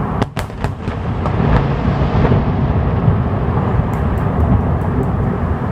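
Aerial fireworks going off in a dense, continuous run of booms, with several sharp cracks in the first second and a cluster of lighter crackles about four to five seconds in.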